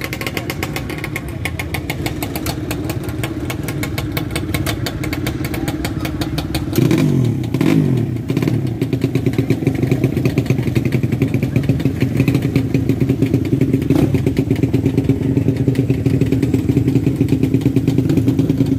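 Motorcycle engines running close by, a rapid even pulsing throughout. About seven seconds in, one revs, its pitch sweeping down and back up, and the engine sound is a little louder after that.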